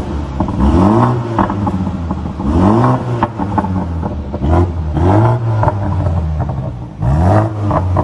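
BMW M235i engine and exhaust being revved while the car stands still: about five short throttle blips, each rising in pitch and falling back to idle.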